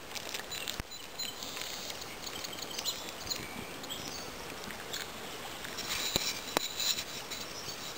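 Small wood fire of twigs crackling under a metal canteen cup, with a few sharp pops over a steady outdoor hiss.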